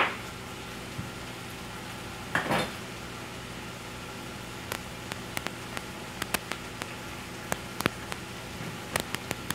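A knife clicking against a cutting board in short, irregular taps as food is cut, the clicks starting about halfway in, over a faint steady hum.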